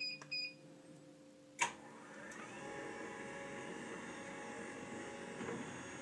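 A stair lift beeps twice at the start, gives a sharp click about a second and a half in, then its drive motor starts and runs with a steady hum as the carriage climbs the rail.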